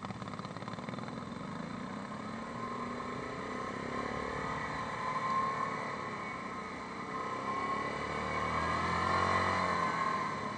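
Yamaha Grizzly 550 ATV's single-cylinder four-stroke engine running under way, the pitch rising as it accelerates about halfway through and again, louder, near the end.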